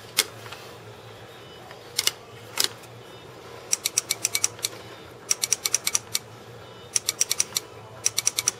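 Electro-etcher's cotton-swab electrode tapping on a stencil laid over a stainless steel knife blade, making sharp clicks. There are a few single clicks at first, then short quick runs of several clicks a second from about halfway.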